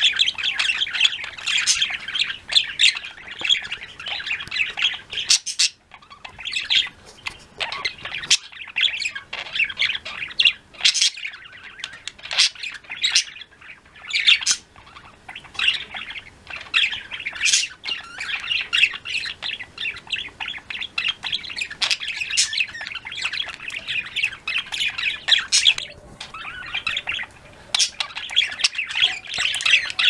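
A flock of budgerigars chirping and warbling together: a dense, continuous chatter of trills broken by sharp high chirps, with a few brief lulls.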